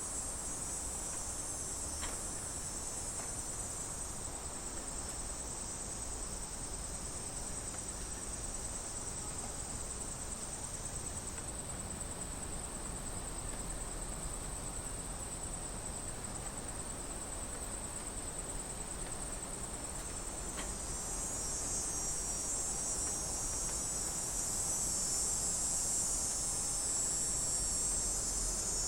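Cicadas buzzing in a continuous high-pitched drone, which swells louder about three-quarters of the way through.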